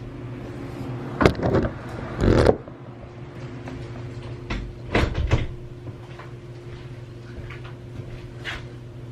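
Handling noise as a camera is set in place: a few knocks and rustling clatters, the loudest a second or two in and again about five seconds in, over a steady low hum.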